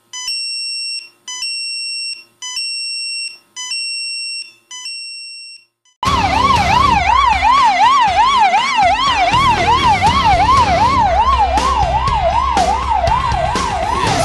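A phone's message alert for a fire call-out beeping five times, each tone about a second long. Then, from about six seconds in, a fire engine's siren yelping in a fast up-and-down rise and fall over a low rumble.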